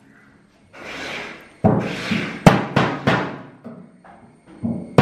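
A screwdriver being hammered into the lid of a square metal cooking-oil tin to punch it open: a run of sharp metallic blows, several a second from about a second and a half in, each ringing briefly, after a short rushing noise about a second in.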